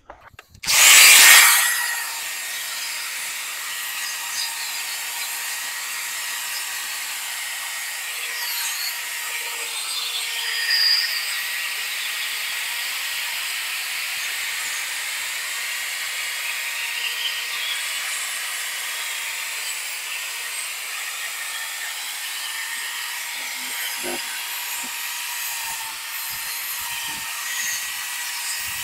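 Corded drill spinning a 3M 800-grit sanding disc against a plastic headlight lens. It starts up loudly about a second in, then runs steadily with a faint whine under the hiss of the pad scrubbing the lens.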